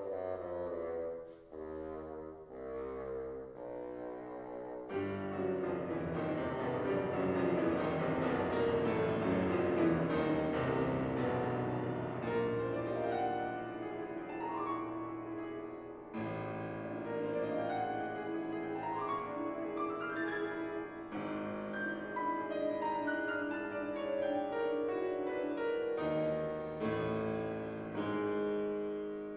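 Bassoon and piano playing contemporary classical music: short, detached notes for the first few seconds, then a fuller, continuous passage with rising runs.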